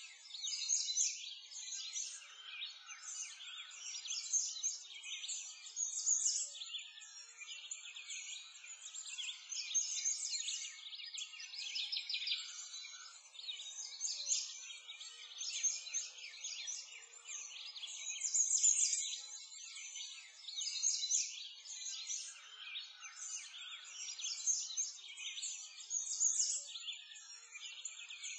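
A dense chorus of small birds chirping and singing, all high-pitched with nothing low underneath, swelling and fading every couple of seconds.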